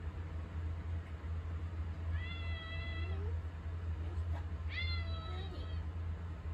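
Domestic cat meowing twice, a couple of seconds apart; each call rises at its start and is then held for about a second. These are attention-seeking meows at a person in the kitchen. A steady low hum runs underneath.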